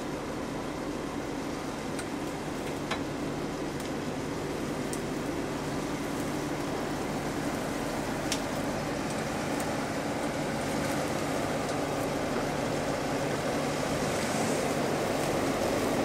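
Jeep Wrangler JK engine running at low revs as it crawls over rock, growing steadily louder as it approaches, with a few sharp clicks scattered through.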